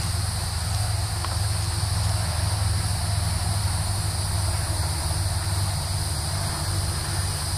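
Steady, high-pitched chorus of insects, such as crickets, running without a break over a steady low rumble.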